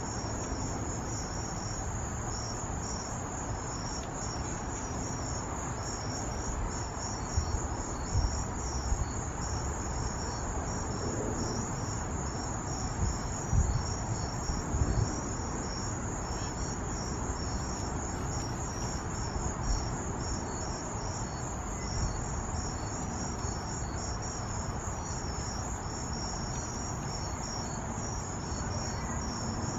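Crickets chirping in a steady high-pitched chorus of rapid pulses over a low background rumble, with a few soft thumps around the middle.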